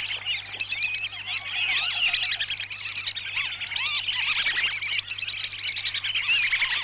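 A flock of whistling ducks (blibis) calling all at once, a dense chorus of short rising and falling whistles overlapping without a break, played as a lure recording to attract wild birds.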